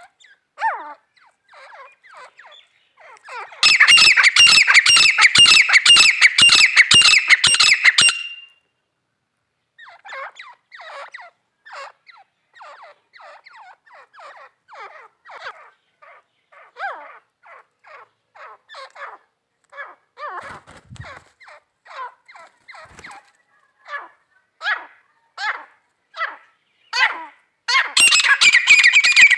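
Female teetar (francolin) calling: a loud, fast series of harsh repeated notes for about five seconds, then a long run of quieter single short notes, and loud rapid calling again near the end.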